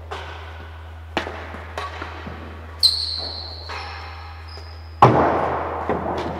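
Real tennis rally: the solid ball struck by rackets and rebounding off the court's walls and floor, each hit a sharp knock that echoes round the court, about four main hits, with the loudest about five seconds in. A high squeal sounds for about a second and a half from about three seconds in.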